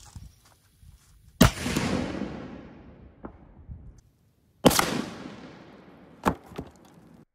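Black powder robinet-style cannon firing bar shot: a loud boom with a long fading echo. After a cut, the shot is heard again from the target end, another boom with a fading echo, followed by a shorter, sharper crack about a second and a half later.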